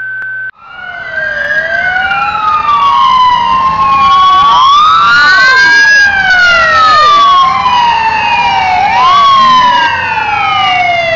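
Fire engine's Federal Signal PA300 electronic sirens sounding a slow wail: several tones rising and falling out of step with one another, growing louder over the first few seconds and then staying loud.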